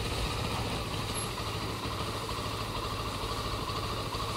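Motorcycle engine running at a steady pitch, picked up by a chest-mounted action camera.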